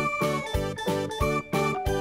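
Bouncy, game-style children's music from the SmartGurlz tablet app, with short pitched notes on an even beat of about three a second.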